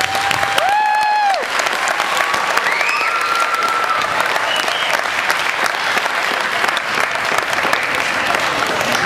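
Audience applauding, with a few high-pitched whoops and cheers in the first few seconds.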